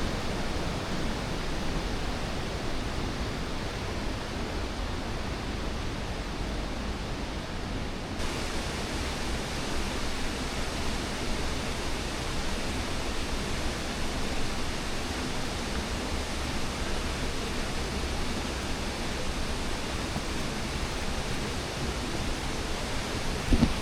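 Steady rush of a stream and waterfall, a constant hiss of falling water that turns brighter and more hissy about eight seconds in.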